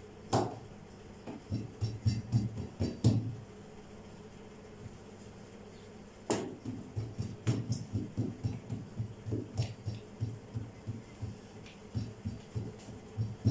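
Background music with a low, pulsing beat that drops away for about three seconds in the middle, then comes back with a sharp click.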